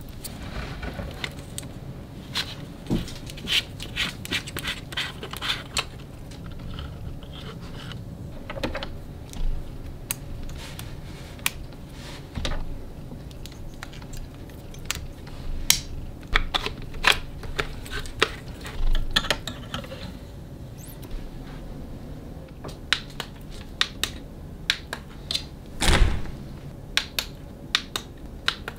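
Hard plastic clicks, taps and light rattles as AA batteries are handled and loaded into a plastic lightstick's battery compartment, in scattered irregular handling sounds, with a louder knock near the end.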